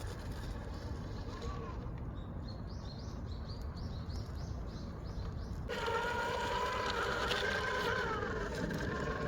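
A small bird chirps repeatedly, about three short calls a second, over steady outdoor background noise; about six seconds in, the whine of an RC crawler's electric motor and gearing starts abruptly and rises and falls in pitch with the throttle.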